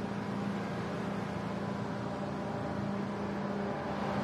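Steady drone of the E-8C Joint STARS aircraft's jet engines running on the ramp, with a constant low hum under a wide rushing noise.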